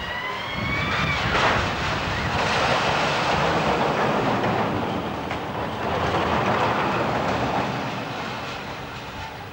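Steel looping roller coaster train running along its track: a rising whine in the first second, then a loud rushing rumble of wheels on steel track that swells twice and fades toward the end.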